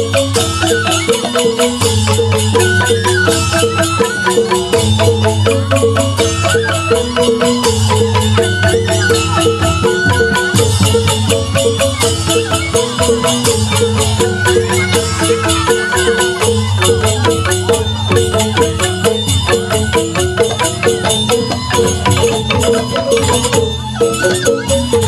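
Balinese bamboo gamelan (joged bumbung) playing a tabuh petegak instrumental piece: bamboo xylophones struck in fast runs of notes, with kendang drums, ceng-ceng hand cymbals and bamboo flutes. The low drum layer drops out and comes back in sections.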